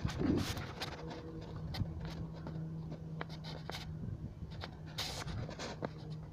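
Handling noise from a handheld phone's microphone: light rubbing and scattered small clicks, over a faint steady low hum.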